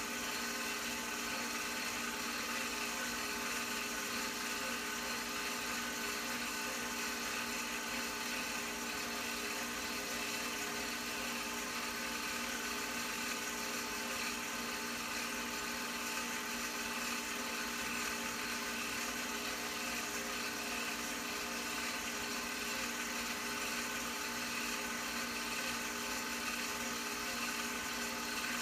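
Film projector running with a steady motor whir and hiss.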